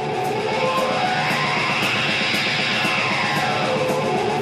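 Rock music led by guitar, with a steady beat.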